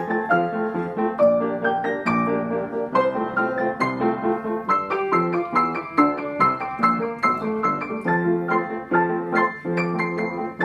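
Piano playing a tune as a steady stream of notes and chords, with no pause.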